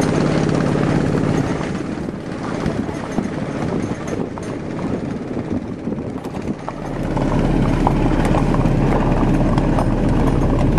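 Horses' hooves at a walk under a steady low rumble. The rumble thins in the middle and grows heavier again about two-thirds of the way in.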